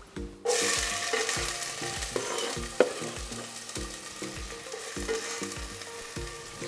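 Chopped onion hitting hot, smoking olive oil in an enamel pot: a sudden loud sizzle about half a second in that keeps frying and slowly fades, with a few sharp knife clicks against the wooden board.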